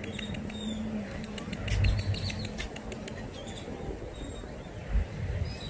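Small birds chirping, a scatter of short, high ticks and chirps, with two low thumps about two seconds in and near the end.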